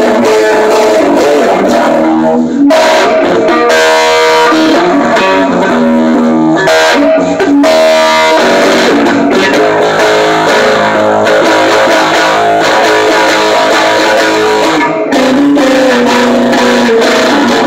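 Gretsch Jim Dandy parlor guitar, modified with an added pickup and amplified, strummed in chords that change every second or two, with a few brief breaks between strums.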